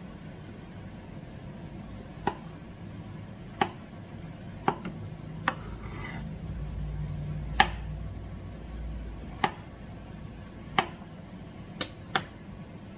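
Kitchen knife slicing fresh field mushrooms on a wooden cutting board: about nine sharp knocks of the blade meeting the board, spaced irregularly a second or so apart.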